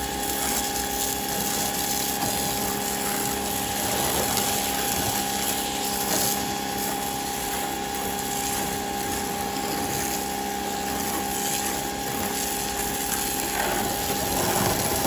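Electric pressure washer running steadily, its motor and pump giving a constant whine over a spray hiss, as it feeds a Tool Daily foam cannon fitted with its original 1.25 mm orifice spraying foam onto a car.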